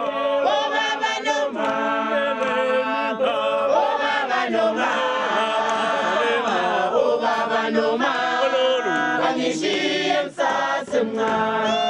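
A group of women and men singing together in harmony, with held notes and chanted phrases, and a brief break about ten seconds in.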